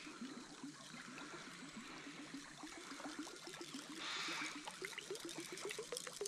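Surface lure being wound back across a still river, making a steady rhythmic gurgle about four times a second that rises a little in pitch towards the end. A brief hiss comes about four seconds in.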